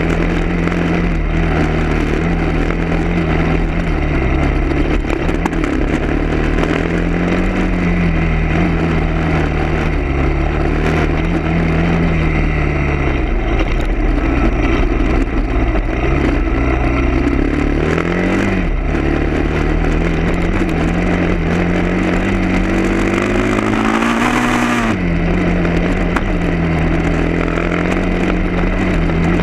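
A vehicle engine running while under way, its pitch slowly rising and falling with speed, with a dip about thirteen seconds in and a climb that drops off sharply near the end, like a gear change.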